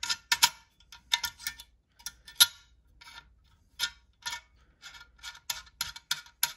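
Filson Trusty Flask's wire lid-retention clip clicking against the steel cap and flask: about twenty sharp metallic clicks at an uneven pace, each with a short ring. It is the rattle the owner thinks will be too much noise in a pocket.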